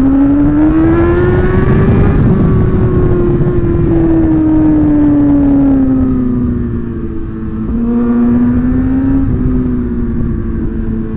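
Sport motorcycle engine heard from the bike, pitch rising for about two seconds under throttle, then falling slowly as the revs drop, then holding steady at lower revs.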